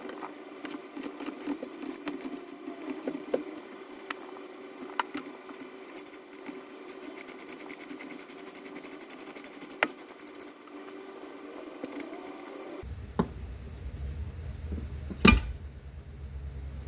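Ratchet and Torx bit working the shifter bolts loose: scattered metal clicks, with a run of fast ratchet clicking in the middle, over a steady hum. A sharp click comes near the end.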